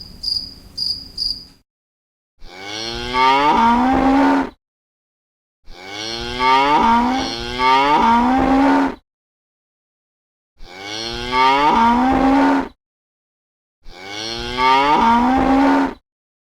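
Cow mooing: a series of long moos that rise in pitch, with silent gaps between them. Quick high cricket chirps in the first second and a half.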